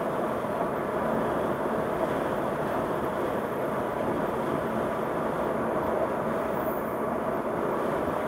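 Steady road and tyre noise of a car driving along a worn, gravelly concrete road, heard from inside the cabin.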